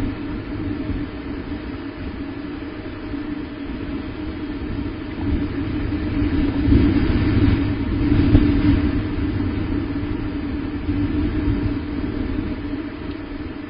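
Steady low rumble that swells in the middle and eases off near the end.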